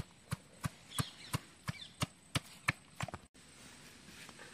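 Stone pestle pounding ginger and garlic in a stone mortar: sharp, even strikes about three a second, stopping abruptly about three seconds in.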